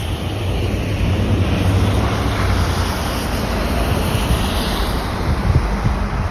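Wind rushing and buffeting the microphone, a steady loud roar with deep rumbling gusts and a hiss that swells and eases.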